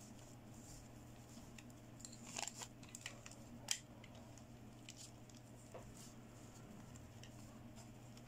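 Faint handling of a plastic fashion doll: a cluster of small clicks and rustles from about two seconds in, the sharpest near the middle, over a steady low hum.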